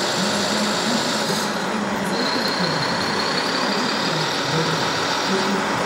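Scale RC Liebherr crawler dozer at work pushing soil: a steady engine-like drone, joined about two seconds in by a thin, steady high whine, over the constant din of a busy hall.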